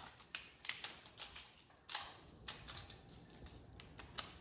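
Plastic magnetic building tiles clicking and clacking against each other as they are handled and snapped into place: a scatter of sharp, irregular clicks, the loudest about two seconds in.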